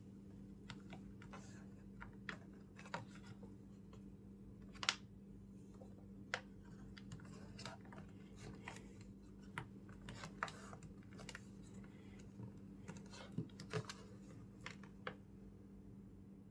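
Scattered light clicks and taps, unevenly spaced, over a steady low hum.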